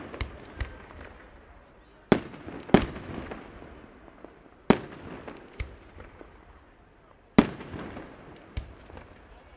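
Aerial firework shells bursting one after another: four loud bangs, each trailing off in a rumbling echo, with smaller pops in between.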